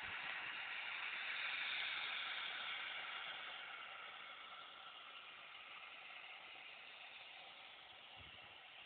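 A steady hiss, loudest in the first few seconds and then fading.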